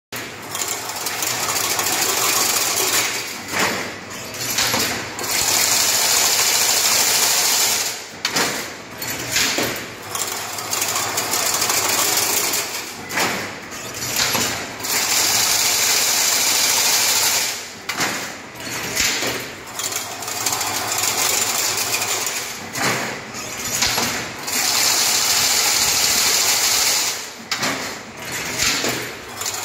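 An automatic chain link fence weaving machine running. A steady whirring hiss holds for two or three seconds, then drops away into a short stretch of clattering knocks, and the cycle repeats about every five seconds.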